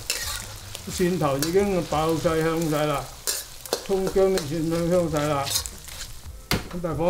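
Minced pork, garlic and ginger sizzling in a carbon-steel wok as a stainless-steel spatula stirs and scrapes it, with a few sharp clicks of the spatula against the wok.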